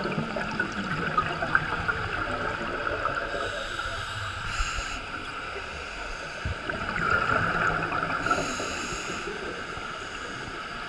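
Scuba diving heard underwater from the diver's camera: breathing through a regulator, with two short hissing breaths a few seconds apart and gurgling bubble exhalations over a steady underwater wash.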